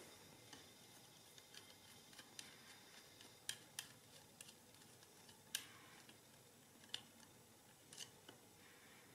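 Light, irregular metallic clicks and ticks from the carriage of a Monroe model K mechanical calculator being handled as it is removed; a handful of the clicks are sharper than the rest.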